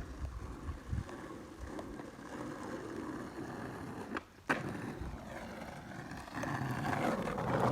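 Skateboard wheels rolling over wet pavement, with a sharp clack about four and a half seconds in, and the rolling growing louder near the end.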